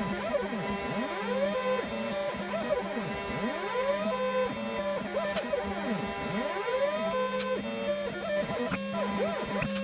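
DIY CNC machine at work: its stepper motors whine in tones that sweep up and down again and again as the axes speed up and slow down, over a steady hum from the spindle.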